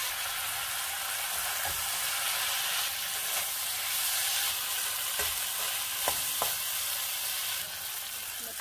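Chickpea masala with mashed potato sizzling in a kadhai, stirred with a metal spatula, with a few light knocks of the spatula against the pan.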